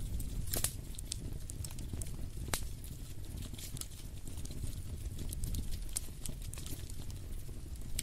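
Wood fire in a fireplace crackling, with irregular sharp pops (two louder ones about half a second and two and a half seconds in) over a steady low rumble.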